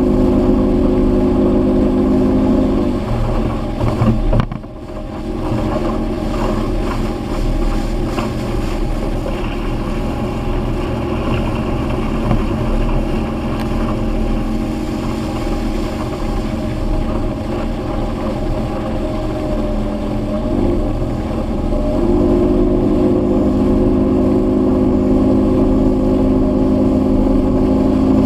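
Evinrude outboard motor running at speed while the boat tows a tube, its engine note steady over the rush of wind and water. The engine note weakens a few seconds in, with a brief drop in loudness, and comes back strong near the end.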